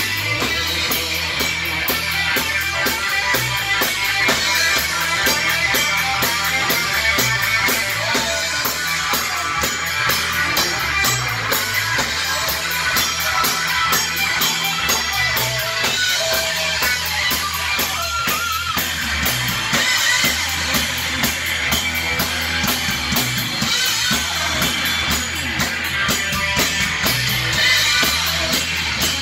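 Rock band playing live in a small room: electric guitar, bass guitar and drum kit together, with the hi-hat ticking steadily.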